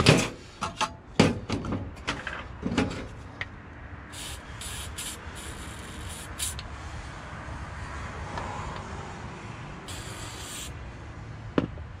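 Aerosol spray can hissing in short bursts into a corroded lock cylinder: four quick bursts about four seconds in, and one more about ten seconds in. Before them come sharp clicks and taps of small metal lock parts being handled, the loudest sounds here.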